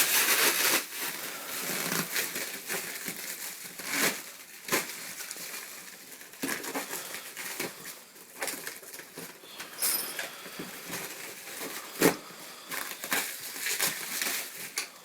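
Crumpled brown packing paper rustling and crinkling as it is handled and pulled out of a parts box, with irregular sharp crackles and a few knocks.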